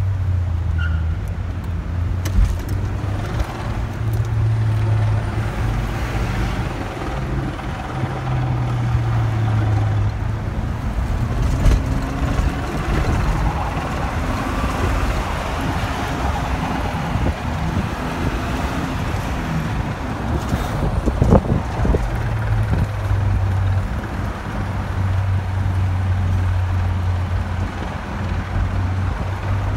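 Engine drone and road noise heard inside a moving vehicle's cabin. The low engine hum shifts in pitch a few times as the vehicle speeds up and slows, and there is one sharp knock about two-thirds of the way through.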